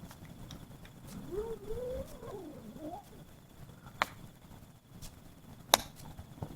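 Wood campfire crackling, with two sharp pops about four and about five and a half seconds in among fainter ticks. From about one second in, a wavering pitched sound rises and falls for nearly two seconds.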